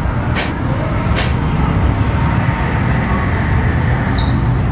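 The last two forceful kapalabhati exhalations: short, sharp hissing puffs of breath pushed out through both nostrils about a second apart, ending a little over a second in. A steady low rumble of background noise runs underneath.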